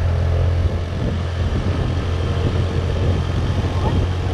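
Motorbike engine running steadily while riding along a road, heard from the rider's seat, with a constant low hum and road or wind noise over it.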